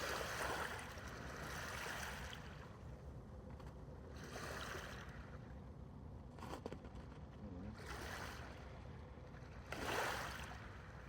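Sea waves washing in against the shore, four swells of surf that rise and fade a few seconds apart.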